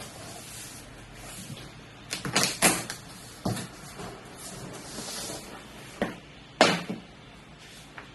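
Cardboard packaging being handled and opened: scattered knocks and bumps with a brief scraping slide, the loudest knock about two-thirds of the way through.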